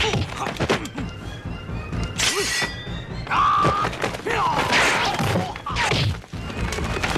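Martial-arts film fight soundtrack: background score music with a series of thudding punch and kick hits, and fighters' shouts and grunts between them.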